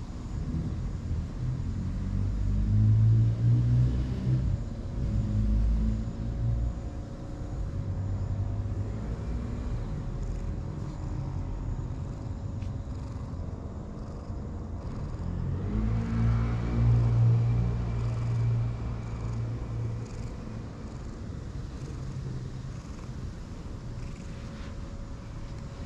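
White-and-light-brown cat purring while being stroked, a low rumble close to the microphone. It swells loudest twice, in the first quarter and again just past the middle.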